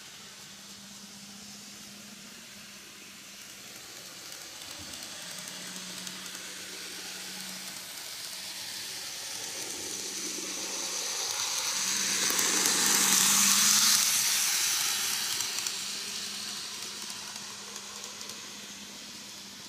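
N gauge model of a coupled pair of Meitetsu EL120 electric locomotives running on model track: a hissing whir of motor and wheels on the rails, with a low steady hum under it. It grows louder as the locomotives approach, is loudest about 13 seconds in as they pass close by, then fades away.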